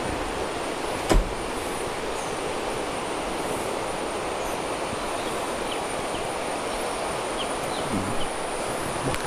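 Steady rush of running water, with a continuous high-pitched insect drone over it and one sharp knock about a second in.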